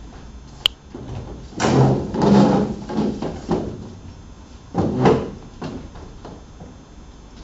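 Classroom furniture being handled: clattering and scraping from a chair and a metal cupboard, in a long burst from about a second and a half in and a shorter one about five seconds in, with a sharp click just before the first.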